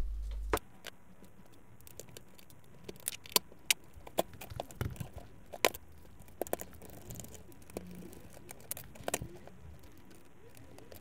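Irregular small clicks and taps of plastic and metal parts of an inkjet printer's mechanism being handled and worked loose during disassembly.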